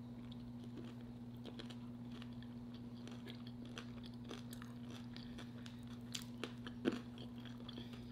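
A person chewing and crunching food close to the microphone, with soft crunches scattered through, over a steady low hum.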